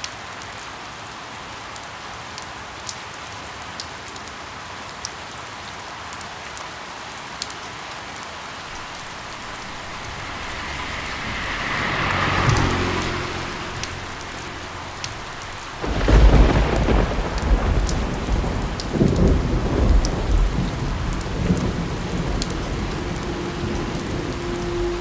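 Steady rain falling, with scattered sharp drips. About two-thirds of the way in, a sudden deep clap of thunder breaks into a long rolling rumble, after a brief swell of louder noise a few seconds before.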